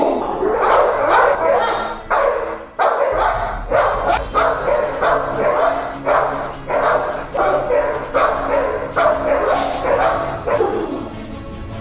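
A female American Pit Bull Terrier barking steadily, about two barks a second. This is guard barking at a man seated in front of her, from a dog in training for personal protection.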